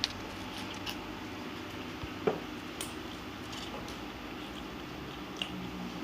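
A toddler eating noodles: soft wet slurping and chewing, with a few light clicks of a metal fork against the bowl, the sharpest about two seconds in. A steady low hum runs underneath.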